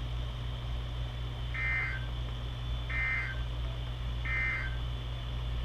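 Emergency Alert System end-of-message (EOM) data tones: three short, buzzy digital squawks about 1.4 seconds apart, signalling the end of the broadcast severe thunderstorm warning. A steady low hum runs underneath.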